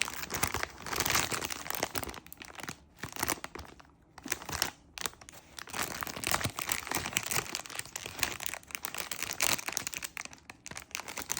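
Plastic packaging crinkling as it is handled, in irregular rustling stretches with brief pauses.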